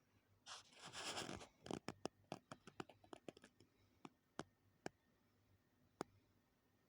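Faint scraping for about a second, then a run of small sharp clicks and taps that grow sparser toward the end.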